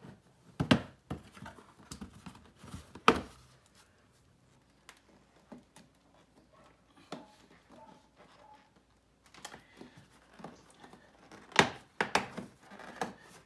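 Hard plastic clicking and knocking as small plastic trim caps and clips are worked loose around a VW Mk5's front bumper and headlight, with sharp snaps about a second in, about three seconds in, and near the end.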